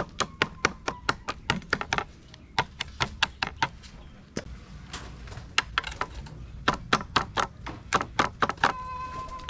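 Kitchen knife chopping raw chicken on a wooden cutting board: runs of sharp knocks, about four a second, with short pauses between runs.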